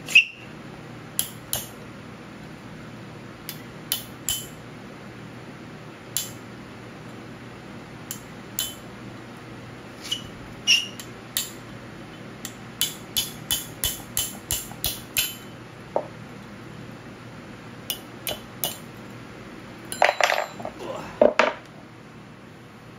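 Small hammer striking a steel punch, metal on metal, to drive an old seal out of an LMTV front-axle spindle: sharp single taps at uneven intervals, then a quick run of about four taps a second. A louder, denser clatter of metal follows near the end.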